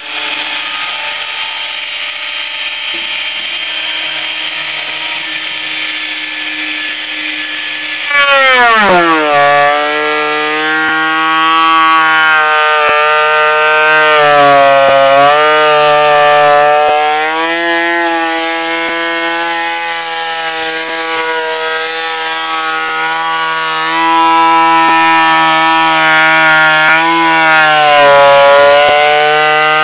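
Electric wood planer running with a steady whine, then cutting from about eight seconds in. At that point it gets suddenly louder and its pitch drops sharply as the motor takes the load. The pitch then rises and sags repeatedly while it cuts.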